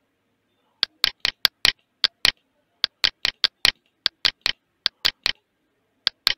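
Computer mouse clicking: about twenty sharp clicks in quick runs of two to five, ticking layer checkboxes one after another.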